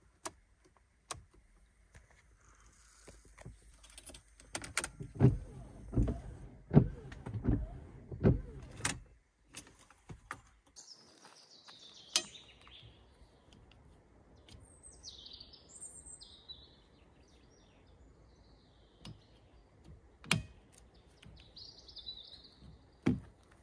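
Sharp clicks of a Mercedes-Benz W211 wiper stalk, then a run of loud, irregular low thumps and knocks from about four to nine seconds in. After that, birds chirp while single sharp plastic clicks come from the wiper blade being unclipped from and clipped onto the raised wiper arm.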